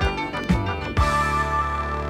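Closing theme music with a beat, ending about a second in on a loud final hit and a long held chord.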